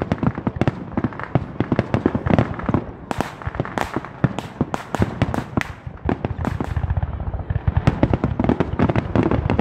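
Aerial fireworks display: a rapid barrage of shell bursts, many bangs a second, overlapping with one another.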